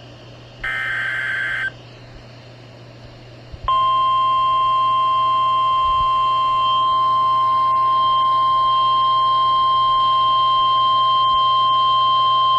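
NOAA Weather Radio Emergency Alert System activation: a last short burst of the SAME digital header's screechy data, then after about two seconds the 1050 Hz warning alarm, one steady high tone held about nine seconds. It signals that an alert message is about to be read.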